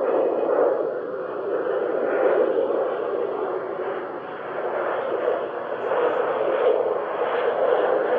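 Outdoor warning sirens sounding together in a wavering tone that swells and fades every few seconds as they rotate.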